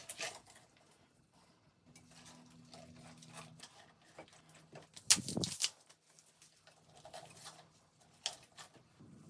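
Handling noises while preparing chicken for a baking pan: scattered soft clicks and rustles, with one louder knock about five seconds in.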